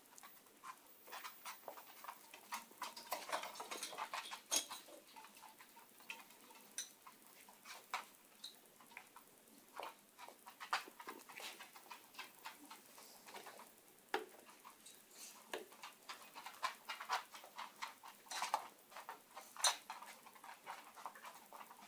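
Irregular light clicks and patter of a Shiba Inu puppy's and an adult Shiba's claws on a wood-laminate floor as they move about.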